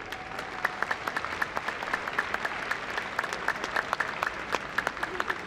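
Crowd applauding, a dense run of sharp individual claps over a steady wash of clapping.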